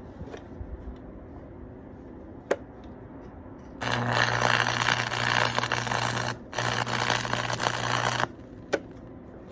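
Stick (arc) welding on muffler pipe: the arc crackles and sizzles in two runs, about two and a half seconds and then two seconds long, with a short break between them and a steady low hum underneath. A single sharp click comes a couple of seconds before the first run and another just after the second.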